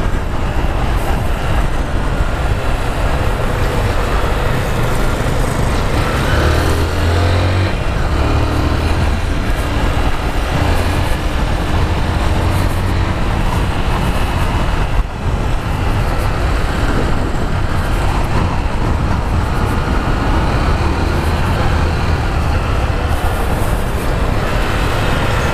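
Honda CG 150 Fan motorcycle's single-cylinder engine running while riding at speed, mixed with a steady rush of wind and tyre noise; the sound dips briefly about halfway through.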